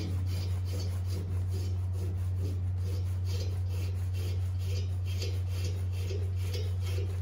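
Ratchet wrench worked in steady rasping strokes, about three a second, running a nut down a bolt on the rear axle's leaf-spring mount, over a steady low hum.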